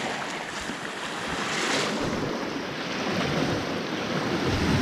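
Small waves washing and breaking on the shore close by, a steady rush of surf that grows louder near the end as a wave breaks in foam.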